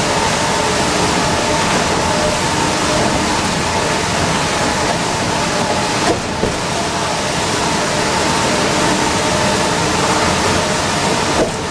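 Orion V transit bus at highway speed on a rain-wet road, heard from inside the cabin: a steady, loud mix of engine and tyre noise, tyres hissing on the wet surface, with a faint steady whine. Two brief clicks, about six seconds in and again near the end.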